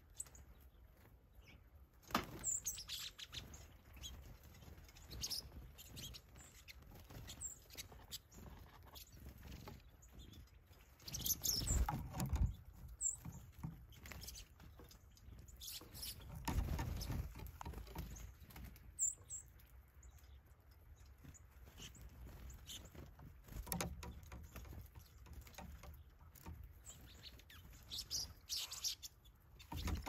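Small songbirds at a seed feeder giving short, high chirps every few seconds, with a few louder rustling bursts, two of them near the middle.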